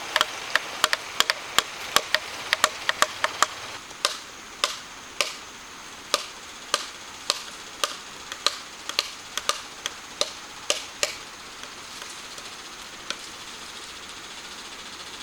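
Rapid sharp strikes of a hand tool on wood, about three a second at first, then slowing to under two a second and stopping about eleven seconds in, with one last strike a little later. A steady hiss runs underneath.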